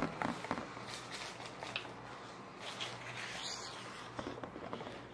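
Faint rustling and light clicks of things being handled, over a low steady hum.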